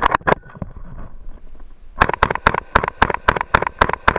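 Clatter of the FB Mini-Beryl 5.56 mm carbine being handled, then about two seconds in a fast string of semi-automatic rifle shots begins, about five or six a second, each with a short echo.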